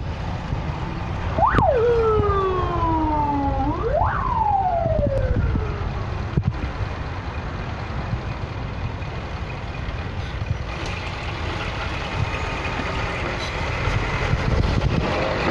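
An emergency vehicle's siren sounds twice, each time jumping up sharply and then sliding slowly down, over the steady low rumble of truck and car engines in slow traffic.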